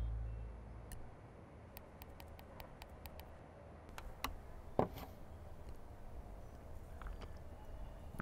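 A drinking glass handled on a table: a run of faint light clicks, then a single louder knock a little before five seconds in and a few softer taps after it.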